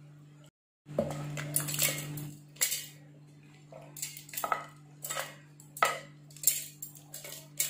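Fried radish slices, dal and dried red chillies being scraped with a wooden spatula from a pan into a stainless-steel mixer-grinder jar: a run of irregular clatters and clinks as the pieces hit the metal.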